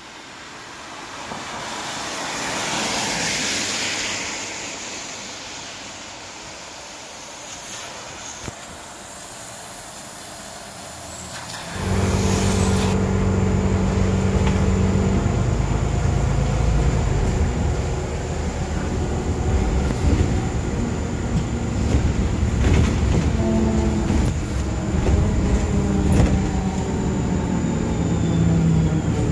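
A car passing on a wet road, its tyre hiss rising and falling over a few seconds. About twelve seconds in, the sound cuts to the inside of a moving city bus: the engine and drivetrain run as a steady low hum with a few steady whining tones.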